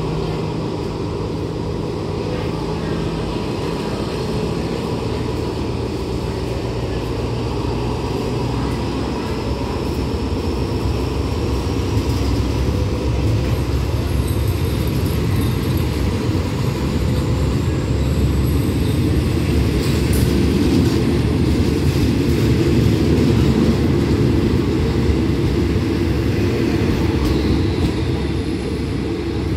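Coaches of a departing train rolling past along the platform, a steady rumble of wheels on the rails that grows louder through the middle and eases near the end as the last coach goes by.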